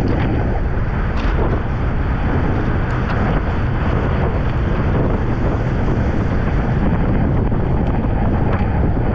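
Wind rushing over the microphone of a camera riding along on a racing bicycle, a loud steady roar of noise.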